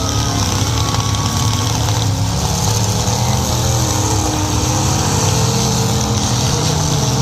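Car engines running with a loud, steady low drone.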